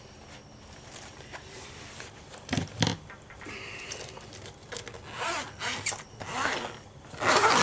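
Two knocks, then the zip of a fabric zippered pencil case being pulled open in several rasping strokes, loudest near the end.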